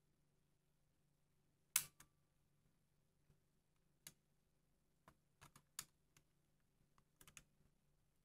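Sparse small plastic clicks from a Revue Pocket 250 camera as it is handled. The sharpest click comes about two seconds in, single clicks follow, and a quick cluster of clicks comes near the end.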